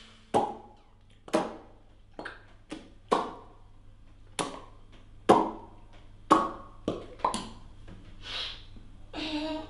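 About a dozen sharp pops in an irregular rhythm. Each has a short hollow ring, and the ring sits at a different pitch from one pop to the next.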